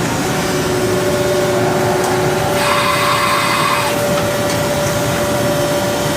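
Haas VF-2SS CNC vertical machining center running: a loud, steady machine noise with a constant whine, and a hissing swell that rises and fades about every four to five seconds.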